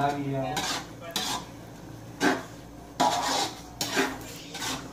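A utensil stirring and scraping sauce around a wok on a lit gas burner, about six short scrapes at uneven intervals, with a light sizzle from the pan.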